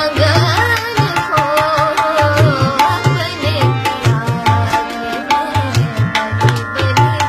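A woman singing a melody in Indian classical style, accompanied by a tabla playing a steady rhythm of sharp strokes and deep bass beats, over steady harmonium chords. The voice is heard through the first half or so.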